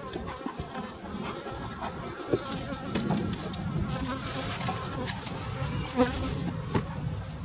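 Honeybees buzzing around an open hive, a steady hum, with a few sharp knocks from hive equipment being handled.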